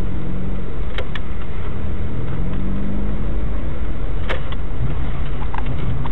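Car running with steady engine hum and road rumble, its pitch drifting slightly, broken by a few short sharp clicks.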